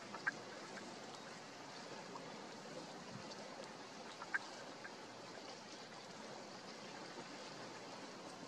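Steady rushing sound of water outdoors, with two brief high chirps, one just after the start and one about four seconds in.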